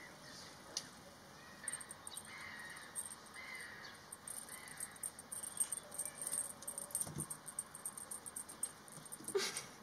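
Animal chirping: a few short arched chirps in the first four seconds, then a fast, dense high ticking.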